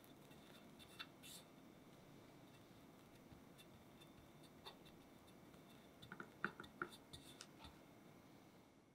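Faint scraping of a metal spatula spreading and smoothing whipped-cream frosting on a cake, with a light click about a second in and a quick run of clicks between about six and seven and a half seconds.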